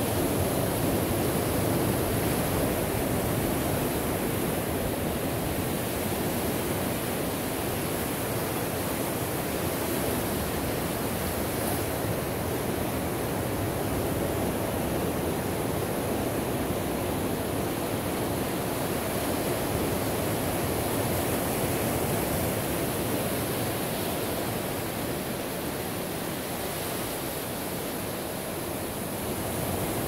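Ocean surf breaking and washing on the shore: a steady rush of water noise that swells and eases slowly.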